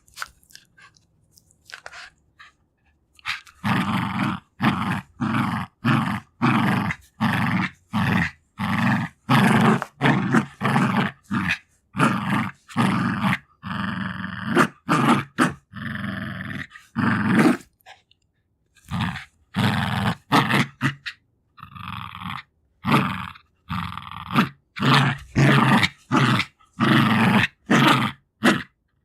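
Jack Russell Terrier growling over a toy in a play fight, in short bursts about two a second, each growl pulsing with her breath, broken by a brief pause about two-thirds of the way through. The opening seconds are quieter.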